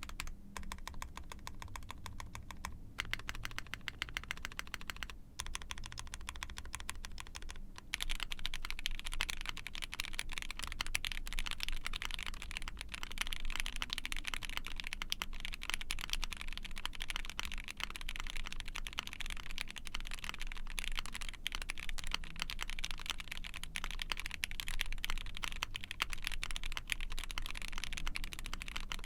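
Typing on an ai03 Vega mechanical keyboard with a POM plate, lubed Gateron CJ linear switches and GMK keycaps: a rapid, continuous run of keystrokes with a few brief pauses early on, then steadier and louder typing from about eight seconds in.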